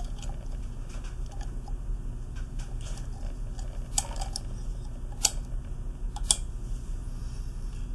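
Light metal clicks and scrapes as a metal spring retainer is pressed down against the spring and turned to seat it inside the brass body of a pressure vacuum breaker, with three sharper clicks about four, five and six seconds in. A steady low hum runs underneath.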